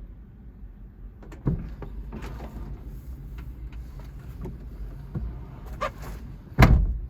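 A low, steady rumble with a run of knocks and clicks, the loudest a heavy thump near the end.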